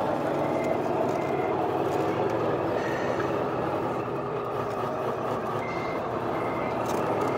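Tamiya 1/14 Scania RC truck's sound module playing a steady diesel engine sound as the truck creeps forward, with short high beeps sounding a few times, mostly in pairs.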